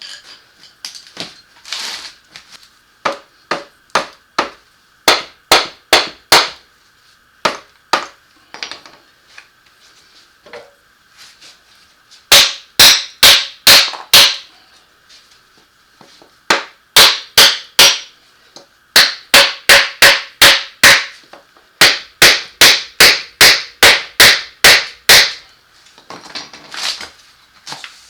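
Hammer striking a wrench on the transfer case bolts in runs of four to about a dozen sharp metal blows, roughly three a second, with short pauses between runs: the hammer-and-wrench method of breaking the bolts loose.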